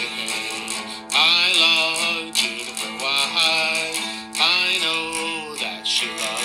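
Background music: a country-style song with strummed acoustic guitar.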